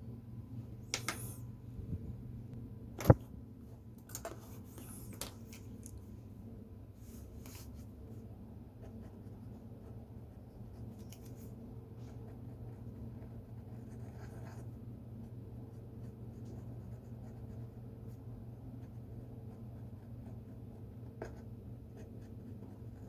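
Drawing strokes on paper, short scratchy strokes coming every few seconds, over a steady low room hum. A single sharp click about three seconds in is the loudest sound.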